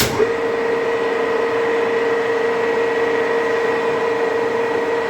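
Cleereman 25-inch box-column drill press, its 5 hp three-phase motor and gear head running at the machine's highest spindle speed. It starts abruptly and runs as a steady whine over mechanical running noise.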